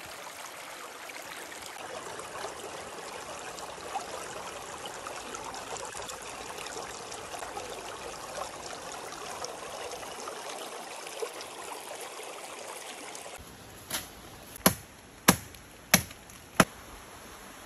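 Steady rushing of running water, which stops abruptly about three quarters of the way in. Near the end come five sharp knocks, about two thirds of a second apart; these are the loudest sounds.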